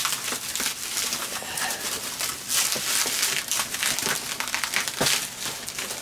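Bubble wrap crinkling and scraping against cardboard as a tightly packed, bubble-wrapped box is worked out of a shipping carton, with continuous rustling and many small irregular crackles and clicks.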